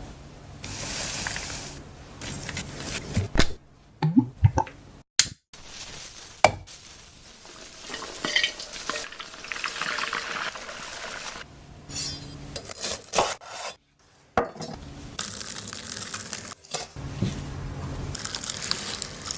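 Close-up kitchen cooking sounds in short edited snippets: utensils clicking and knocking against dishes and pans, stirring, and stretches of food sizzling as it fries in oil. Each snippet cuts off suddenly.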